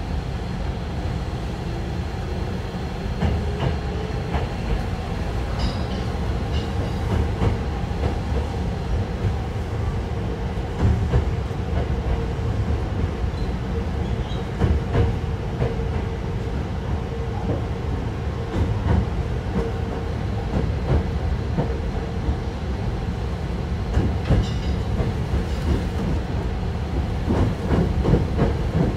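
Hankyu 1000 series electric train heard from on board, running on the line: its Toshiba permanent-magnet synchronous traction motors give a whine that rises in pitch over the first few seconds and then holds steady. Under it run the wheels' rumble and clicks over rail joints, which come thicker near the end.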